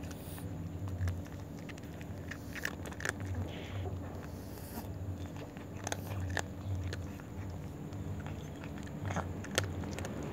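A tabby cat eating dry kibble: irregular sharp crunches as it bites and chews the hard pellets, over a steady low hum.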